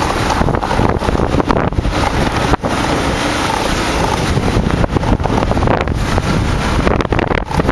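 Wind buffeting the microphone on a moving motorcycle, a loud, rough rush with the bike's running noise underneath.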